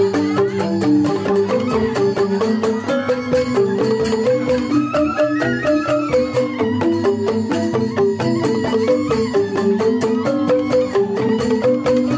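Balinese joged bumbung gamelan: bamboo xylophones (grantang) struck with mallets in fast, repeating note patterns, with a bamboo suling flute playing a melody above them.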